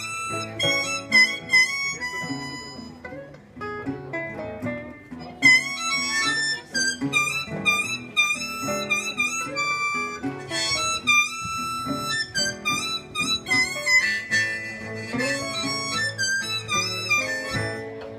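Blues harmonica solo, its notes bent in pitch, over two acoustic guitars playing along: a live instrumental break between sung verses.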